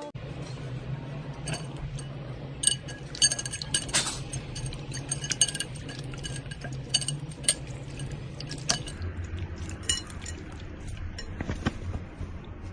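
Scattered light clicks and clinks of hard objects, several with a brief ringing, clustered in the middle, over a steady low hum that drops lower about nine seconds in.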